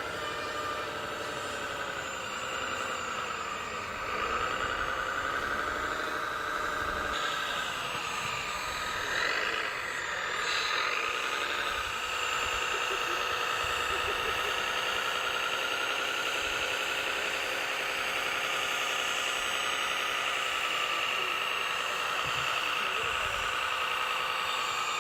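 Whine of radio-controlled trucks' motors and gearboxes being driven, the pitch rising and falling with the throttle, then holding steadier from about halfway through.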